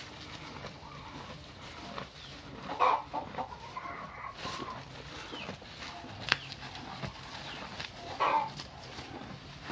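Cattle munching and pulling at fresh grass in a wooden stall, with two short, loud animal calls about three seconds and eight seconds in and a sharp click just after six seconds.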